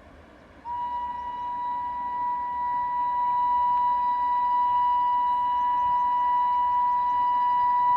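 WAP-5 electric locomotive's air horn sounding one long, steady blast that starts just under a second in and is held, over a low rumble of the train on the track.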